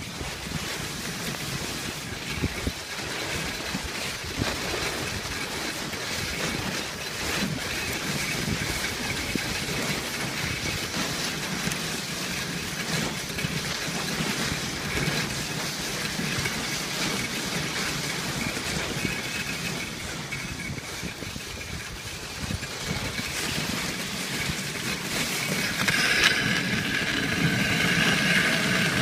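Wooden dog sled running over packed snow, its runners hissing and scraping steadily, with a few knocks and bumps from the sled. Near the end it grows louder and a higher squeak joins in.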